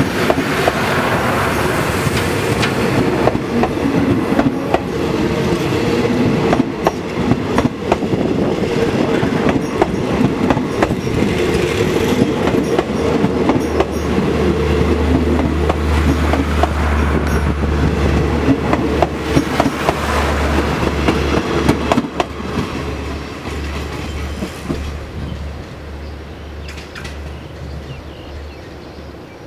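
Passenger coaches of an express train passing close by at speed: steel wheels rumbling and clicking over the rail joints. The sound drops and fades in the last several seconds as the train draws away.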